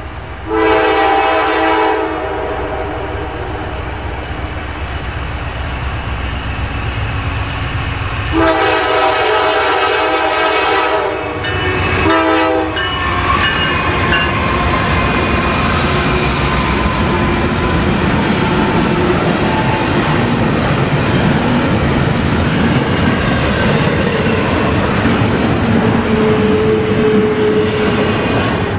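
Norfolk Southern diesel locomotive No. 9970 sounding its air horn: one blast about a second in, then a longer blast and a short one from about eight to thirteen seconds in. The locomotive and a double-stack intermodal train then pass close by with a steady loud rumble and wheels clattering over the rail joints, and a few brief thin squeals.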